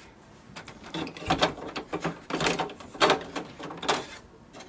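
Short plastic clicks and clatters from a hand working the ink cartridges and their blue locking levers in the cartridge holder of a Canon Pixma TS3440 inkjet printer, four or five brief rattles about a second apart.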